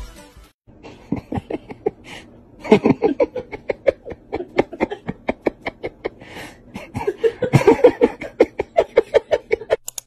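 A person laughing hard in rapid repeated bursts, several a second, breaking off briefly about two seconds in and loudest near the end.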